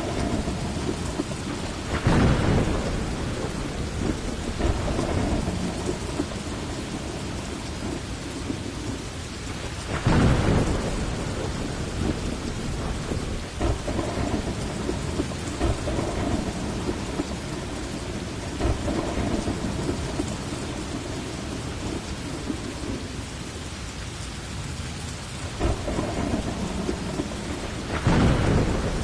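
Heavy rain falling steadily in a thunderstorm, with rolls of thunder swelling up about two seconds in, again about ten seconds in, and near the end.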